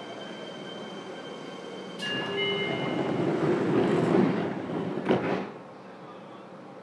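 Interior running sound of a Fukuoka City Subway 2000-series train with Hitachi GTO-VVVF traction, moving along with a steady high whine. About two seconds in, a sudden louder rush of noise sets in and builds for about three seconds, with a sharp crack near its end, then drops back to a quieter run.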